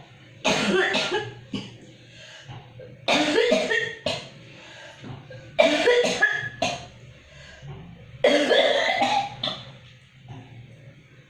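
A person coughing in four fits about two and a half seconds apart, each a quick run of coughs lasting about a second. This is a chronic cough of four years in a patient with an enlarged heart and shortness of breath.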